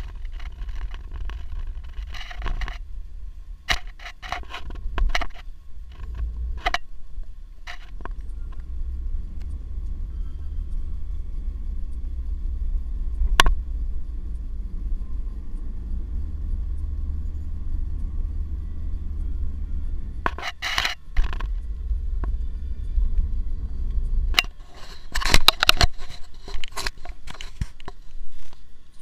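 Car cabin noise while driving at speed: a steady low road and engine rumble, with scattered clicks and rattles from inside the car and a denser clatter near the end.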